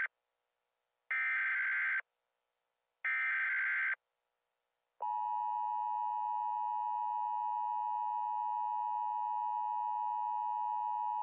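Emergency Alert System header: two bursts of SAME digital data tones, each just under a second long and about a second apart. About five seconds in, the steady two-tone EAS attention signal (853 and 960 Hz) starts and holds.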